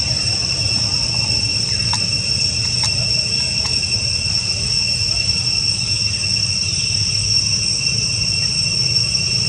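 Steady insect chorus: a continuous high, even buzzing drone at two pitches over a low background rumble, with three faint ticks about two to four seconds in.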